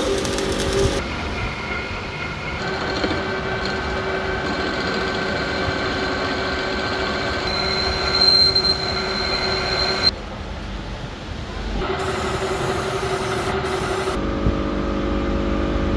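Machinery running with a steady droning whine, broken by abrupt changes in tone every few seconds.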